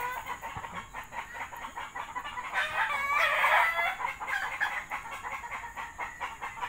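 A rooster crowing once, a wavering call of just over a second near the middle, with faint ticking in the background.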